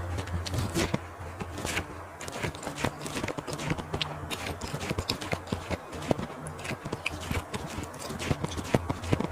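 Close-miked chewing of barbecued sausage with lettuce: many irregular crisp clicks and crunches. A low hum fades out about a second in.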